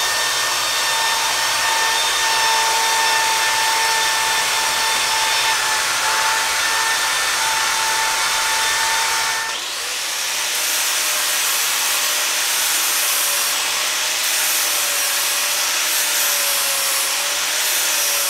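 A cordless drill spins an abrasive disc against the inside of a 6-inch carbon steel pipe end, giving a steady whine with a grinding hiss. About halfway through, a cordless angle grinder takes over and grinds the pipe's bevel, with a lower, slightly wavering whine.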